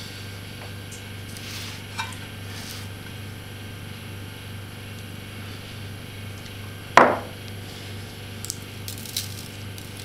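Hands handling a raw chicken breast in a metal baking pan: faint handling noises and light clicks, with one sharp knock about seven seconds in, over a steady low hum.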